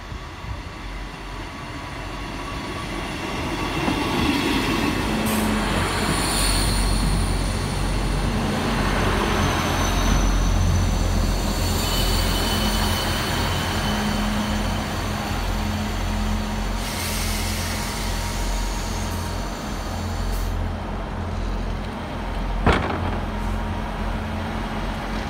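Two coupled Class 159 diesel multiple units drawing into a station. The diesel engines' rumble grows louder over the first few seconds as the train comes alongside, with a thin high squeal as it brakes to a stop, and then the engines run on steadily at a standstill. A single sharp knock comes near the end.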